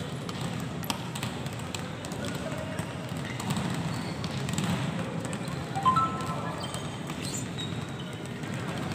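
Volleyballs being struck by players' forearms and hands and bouncing on the court in a large indoor sports hall, with scattered voices calling out across the room.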